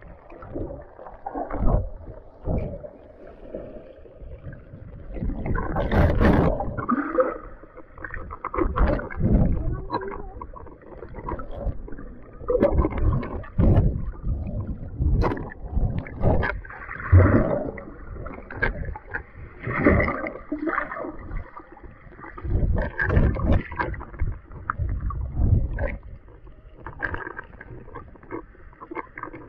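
Muffled underwater sound of water moving and churning around a submerged camera, with irregular dull thumps and surges about every second or two. The strongest surge comes about six seconds in.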